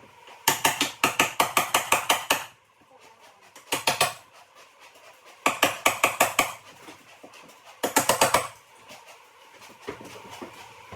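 Rapid sharp knocking or tapping, about five or six strikes a second, in four bursts: a long one near the start, a short one, another about a second long, and a last short one.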